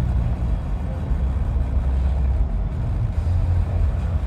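Steady low rumble of a vehicle, with no speech over it.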